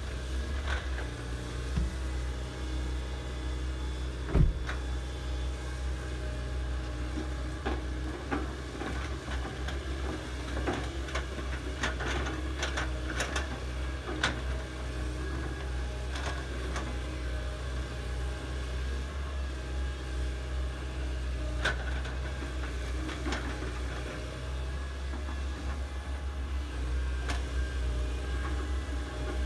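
Hydraulic excavator working: its diesel engine runs steadily while the machine digs. Sharp clanks from the bucket and arm come now and then, several close together around the middle.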